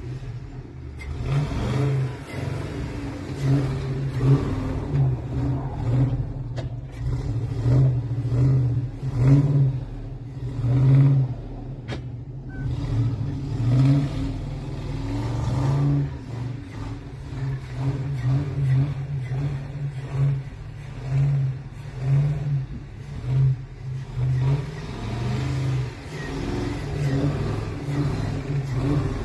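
Old flatbed rat-rod truck's engine revving up and down over and over as the truck spins circles in snow, the engine note swelling and easing every second or two.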